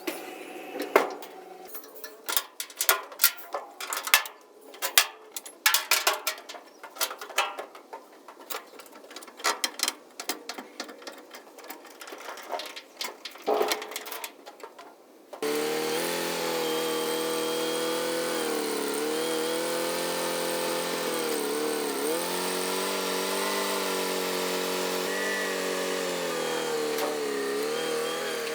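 A string of sharp, uneven knocks and clanks, then about halfway through a motor vehicle's engine cuts in and runs steadily, its pitch wavering up and down.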